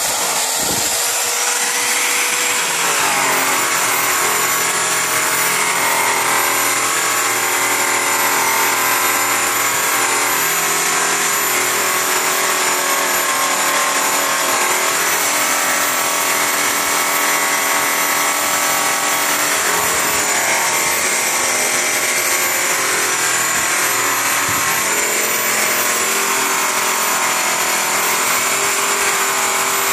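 Handheld electric buffer running steadily, its yellow buffing wheel working polish into an aluminum truck rim around the hub: a motor whine with the rub of the buff on the metal.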